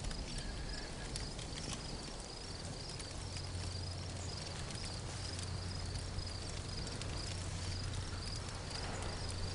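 Night ambience of insects chirping in a steady pulsing rhythm, with a low steady hum coming in about two and a half seconds in.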